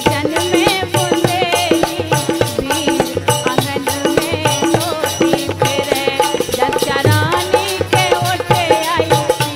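Instrumental passage of Bundeli folk music: steady, rhythmic percussion under a wavering melody line.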